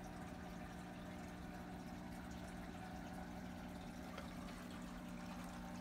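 Aquarium filter running: a faint, steady low hum with water trickling.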